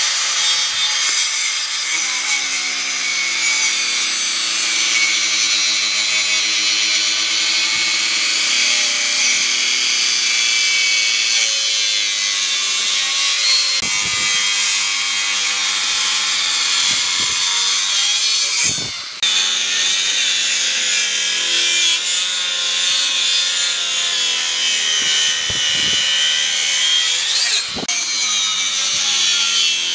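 Maktec handheld circular saw running and cutting shallow kerfs into the end grain of a tree stump, a steady high whine over the noise of the cut. It starts suddenly, and its sound drops out briefly twice, about two-thirds of the way through and near the end.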